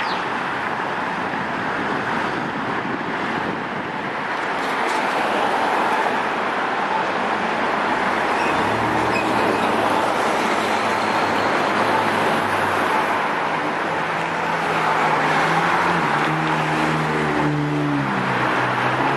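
Road traffic passing along a busy city street, a steady rush of tyres and engines. About halfway through, a low droning tone with several pitches comes in and holds, changing pitch a few times near the end.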